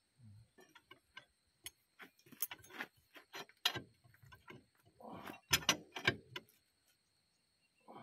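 Steel bar and hand tools clinking, tapping and scraping against a bulldozer's steel drive hub, in irregular knocks, loudest about five to six seconds in.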